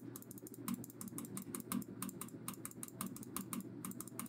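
Rapid, irregular clicking of a computer mouse, faint, over the steady hum of a PC's residual fan noise.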